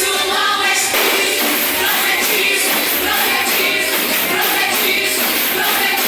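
A church music group singing a worship song together, with instrumental accompaniment and a steady percussion beat.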